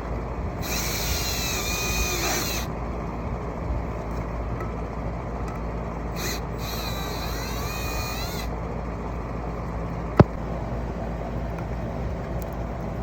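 Cordless drill-driver whirring twice, about two seconds each time, with its pitch rising and falling as it backs out fasteners on a pool pump. There is a steady low hum underneath and a single sharp click near the end.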